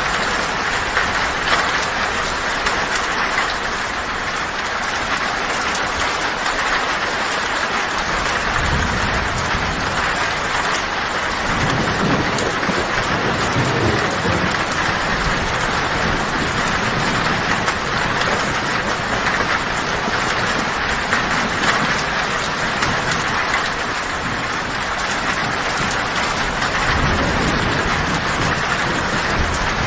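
Heavy rain drumming steadily on a tin roof, with low thunder rumbling in about eight seconds in, again a few seconds later, and once more near the end.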